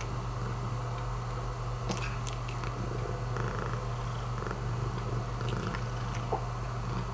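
Long-haired calico cat purring steadily close to the microphone, with a few light clicks about two seconds in.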